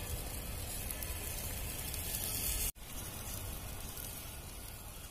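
Whole koral fish (barramundi) sizzling in wire grill baskets over glowing charcoal: a steady hiss of fat and juices hitting the coals. The sound cuts out for an instant about halfway through, then carries on.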